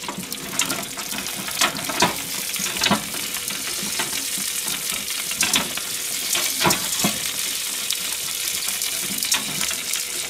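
Hot food sizzling with a steady hiss. Several sharp clicks and knocks come as the metal rack of a fish grill is handled.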